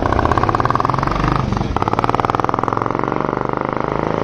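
Royal Enfield Classic 350 Reborn's single-cylinder engine pulling away through an aftermarket K Indori exhaust on the stock bend pipe, with a loud, open-sounding, rapid exhaust beat. There is a brief dip about one and a half seconds in before the beat carries on.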